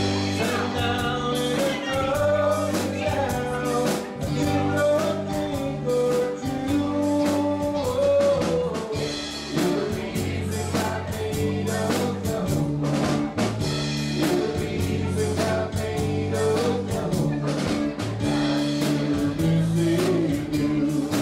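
Live country-rock band playing: a woman sings lead into a microphone over electric guitar and a steady beat.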